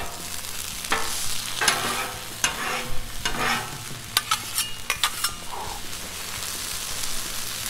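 Sweet corn sizzling in butter and oil on a Blackstone griddle's hot steel top, with repeated sharp scrapes and clicks of two metal spatulas tossing it on the steel, most of them in the first five seconds.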